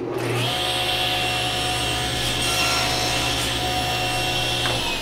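Table saw switched on and running with a steady hum and high blade whine while it takes a hair-thin trim cut off a small wooden piece held in a sled jig. The motor is switched off near the end, and the pitch begins to fall as the blade winds down.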